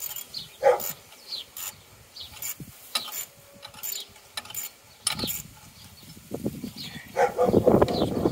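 Ratchet spanner clicking in short strokes as a bolt is worked in the engine bay. From about five seconds in, louder rubbing and scraping join in, strongest near the end.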